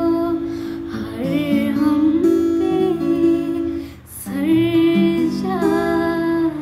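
A girl singing with her own acoustic guitar accompaniment: held, gliding sung notes over plucked and strummed guitar chords, with a brief pause for breath about four seconds in.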